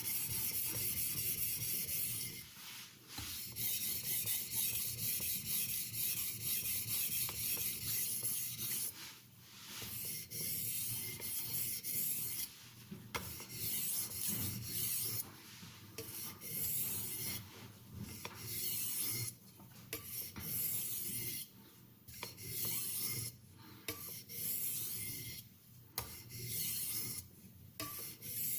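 Steel kitchen knife blade being stroked over an oiled Washita natural oilstone: a steady scraping hiss in runs of strokes broken by short pauses, the pauses coming more often in the second half. This is the refining stage, smoothing the scratch pattern left by a medium India stone.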